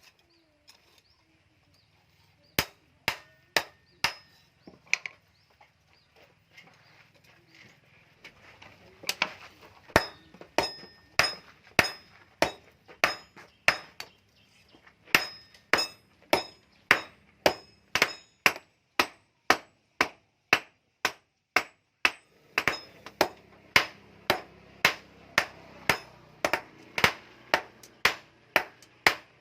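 Hammer blows on hot bearing steel over an anvil, hand forging. A few separate strikes come first, then a steady run of about two blows a second, varying in force, many with a short high metallic ring.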